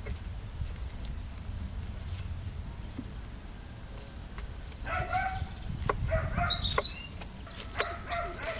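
Chickens clucking, starting about five seconds in, with loud high-pitched chirps joining from about seven seconds in.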